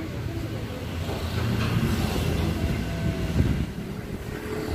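A motor vehicle engine running steadily, growing louder through the middle and easing off again near the end.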